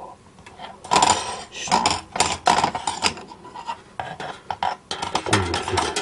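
Thin titanium plates and wire parts of a folding fire stand being handled and fitted together: metal scraping and rubbing against metal, with irregular light clinks and taps.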